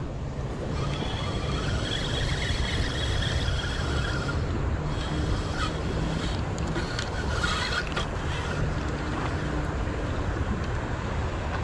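Steady rumble of wind on the microphone, with a spinning reel being cranked as a small fish is reeled in to the bank.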